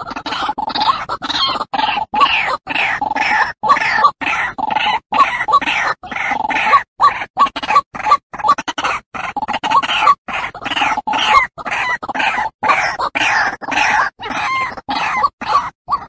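White-breasted waterhen calling: a dense, rapid run of repeated calls, broken throughout by brief, sudden gaps.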